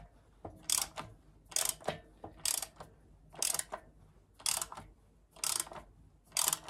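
Hand ratchet wrench clicking in short runs, about one back-stroke a second, as it snugs up the gland nut that holds the flywheel to a VW air-cooled engine's crankshaft.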